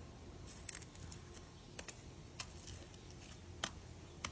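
Plastic fork clicking and scraping against a plastic tub as a capuchin monkey stirs a wet patching paste; a handful of scattered faint clicks, the sharpest about three and a half seconds in.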